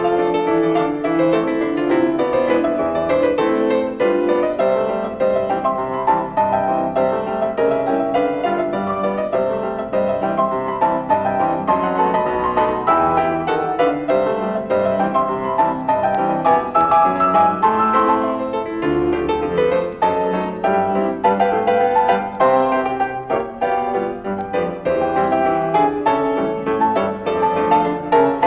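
Piano music: a silent-film accompaniment score played continuously with many quick notes.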